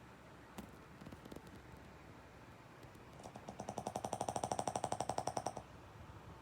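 Snoring: one long, rapid rattling snore on an in-breath, starting about three seconds in and lasting over two seconds.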